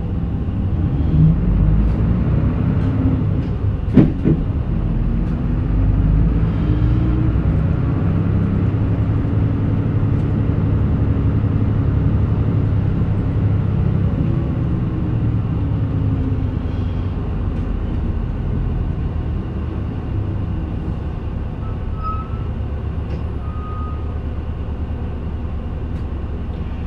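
Mitsubishi Fuso Aero Midi MK (KK-MK27HM) city bus's diesel engine pulling under load, heard from inside the cabin. The engine note climbs in pitch several times as the bus works up through the gears, then sinks lower as it eases off. There is a single sharp clack about four seconds in.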